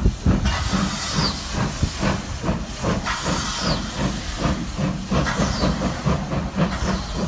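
LMS Jubilee class 4-6-0 steam locomotive 45699 Galatea, a three-cylinder engine, pulling away with a train in steady chuffs from its exhaust over a constant hiss of steam.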